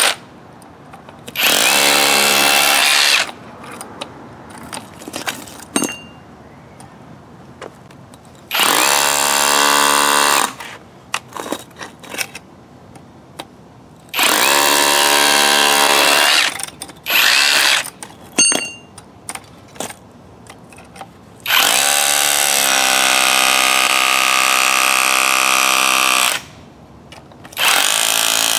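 Avhrit cordless hammer drill in hammer mode, driving a masonry bit into cemented-together bricks to break them apart. It runs in five bursts of two to five seconds with short pauses between. Small knocks and clicks come in the pauses.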